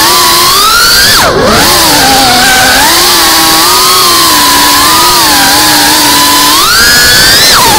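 FPV drone's brushless motors and propellers whining loudly over rushing air, heard from the camera on board. The pitch dips sharply about a second in, then rises and falls with the throttle, climbing high near the end before dropping away.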